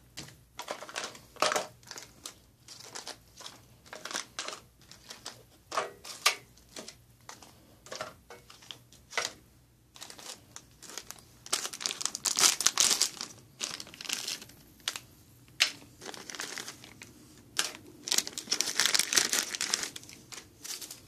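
Stiff plastic-laminate MRE ration pouches being handled and sorted, crinkling and crackling in quick irregular snaps, with denser crinkling about halfway through and again near the end.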